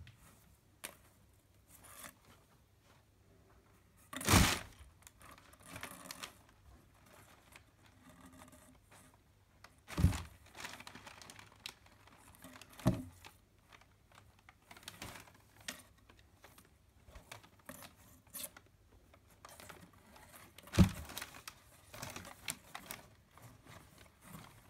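Cat shifting and scrabbling inside a cardboard box: scratchy rustling and scraping on the cardboard, broken by four louder bumps against the box, the loudest about four seconds in and about twenty-one seconds in.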